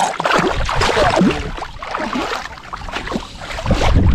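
Shallow water splashing and sloshing as a released flathead kicks off through the shallows. Wind rumbles on the microphone near the end.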